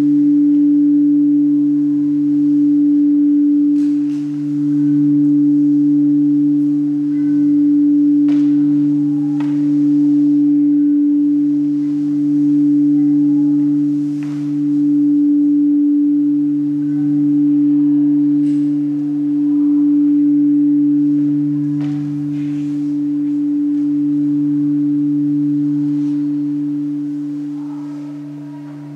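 Sustained musical drone: a strong steady tone with a lower one beneath it, swelling and easing every two to three seconds, with faint scattered clicks over it. It thins out near the end.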